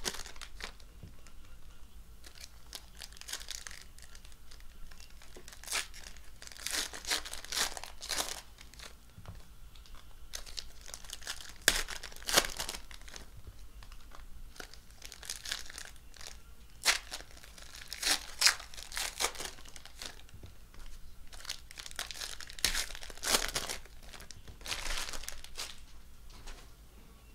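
Shiny foil wrappers of Panini Prizm football card packs being torn open and crinkled by hand, in irregular crackling bursts every few seconds with short pauses between.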